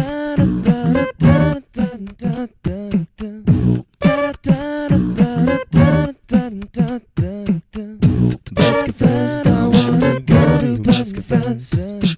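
A cappella vocal music with a beatboxed rhythm: voices singing short, choppy phrases over a steady vocal beat.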